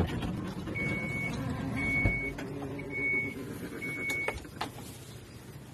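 Power rear entry of a wheelchair-accessible van operating: a steady motor hum with four evenly spaced warning beeps, about one a second. It stops with a clunk a little past four seconds in.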